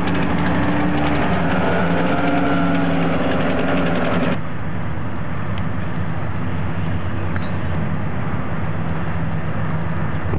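A vehicle engine running steadily with a low, slightly wavering hum. About four seconds in, the sound abruptly turns duller as the higher sounds drop away.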